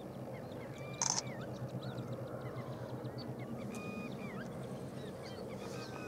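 A flock of greater flamingos gabbling and honking in a steady, goose-like murmur, with many short high chirps and whistles from other birds over it and one sharp, brief louder call about a second in.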